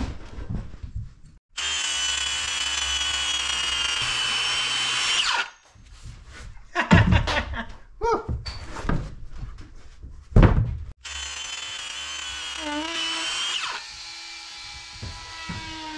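Makita cordless circular saw cutting through a foam seat-back cushion. It runs steadily for about four seconds and stops with a falling whine. After a stretch of loud knocks and thumps, it starts again about 11 seconds in.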